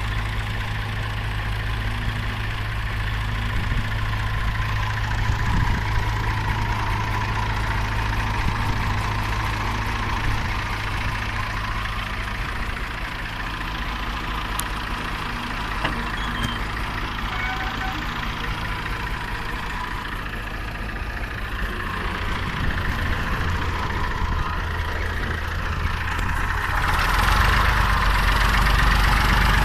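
Heavy diesel engine running steadily at low revs, its note shifting about two-thirds of the way in and growing louder over the last few seconds.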